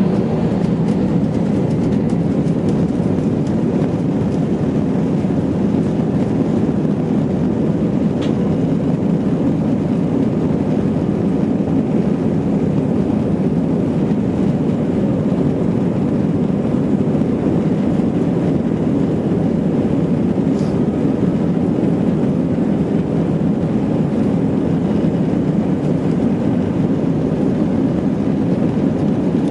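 Steady, even rumble of an Airbus A320 jet airliner during its takeoff run.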